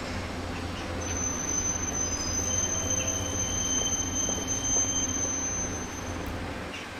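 City street noise with a high, steady squeal that starts about a second in and stops about five seconds later.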